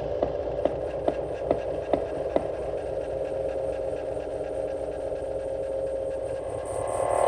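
Electronic noise music: a steady humming drone, with a regular click a little over twice a second that stops after about two and a half seconds, leaving the drone alone.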